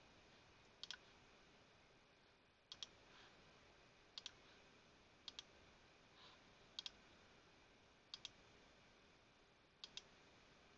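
Quiet computer mouse clicks over near silence: seven pairs of sharp clicks, each pair a press and release, coming about one to two seconds apart.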